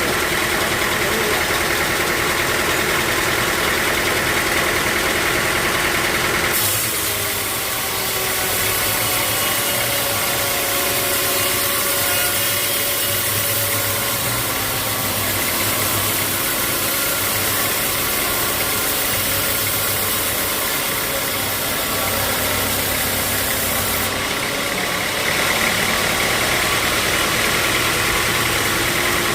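Sawmill machinery running steadily with an engine-like hum. The sound changes abruptly about six seconds in and again near the end.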